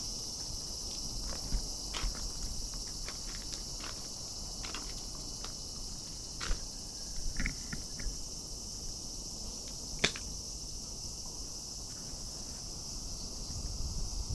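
Steady, high-pitched insect chorus. Scattered light clicks and taps punctuate it, the sharpest about ten seconds in, and a low rumble rises near the end.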